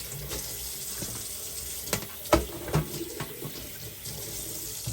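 Kitchen tap running into a sink, with a few sharp knocks of things handled under the water about two seconds in. The water stops abruptly near the end.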